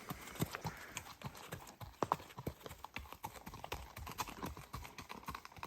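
Footsteps on a hiking trail: an uneven run of short, hard steps, two or three a second.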